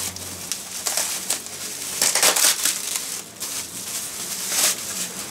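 Plastic bubble wrap crinkling and crackling as it is pulled and unfolded by hand, on and off, loudest about two seconds in.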